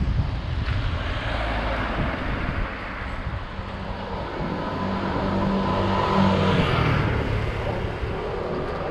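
Engine of a passing motor vehicle, a steady hum that grows louder about five seconds in and eases off near the end, with wind rumbling on the microphone at the start.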